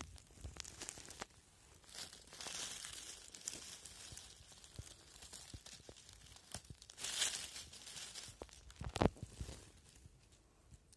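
Dry leaf litter and twigs rustling and crackling as a hand clears the forest floor and pulls up a porcini mushroom, with scattered snaps and a sharp crack near the end.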